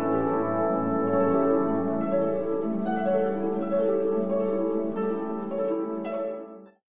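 Instrumental music with sustained tones, fading out and ending shortly before the end.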